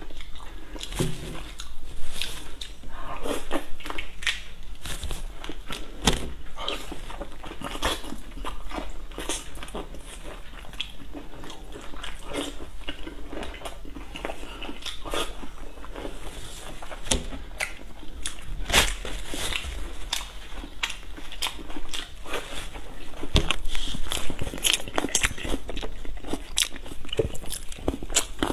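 A person peeling and eating large prawns close to the microphone: the shell cracking as it is pulled off near the start, then biting and chewing with many sharp clicks and crackles.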